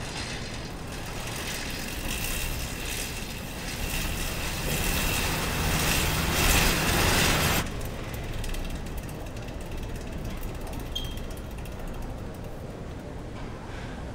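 Air bike's fan wheel whirring under hard pedaling and growing louder as the pace picks up. It drops off abruptly about seven and a half seconds in, leaving a quieter steady whir.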